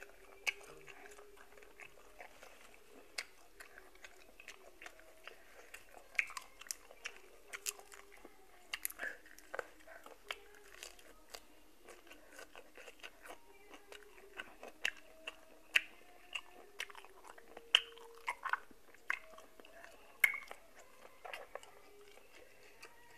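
A person chewing boiled apple snail meat, with scattered sharp clicks of the snail shells knocking together on the tray as they are handled.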